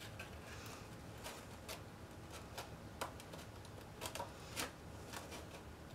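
Faint rustling of cardstock being handled and turned in the hands, with a few light scattered clicks and taps of the paper.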